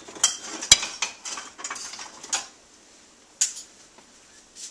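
Metal serving spoon clinking and scraping against a dish and plate as meatballs in sauce are scooped out: a quick run of clinks over the first two and a half seconds, the sharpest about three-quarters of a second in, and one more about three and a half seconds in.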